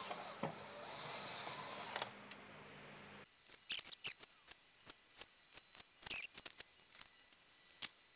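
Cordless drill-driver running a sump-pan bolt in loosely: a steady motor whir for about two seconds, then it stops. After that come scattered light clicks and taps.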